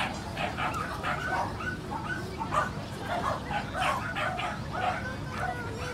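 Dogs yipping and barking over and over in short, quick yelps.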